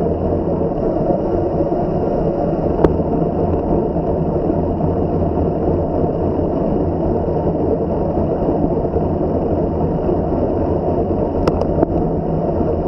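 Steady rumbling rush of wind and tyre noise from riding a bicycle, with a few sharp clicks: one about three seconds in and two close together near the end.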